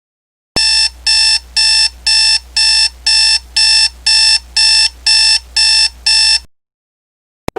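Electronic alarm beeping: twelve even, steady-pitched beeps at about two a second, which stop abruptly about six seconds later.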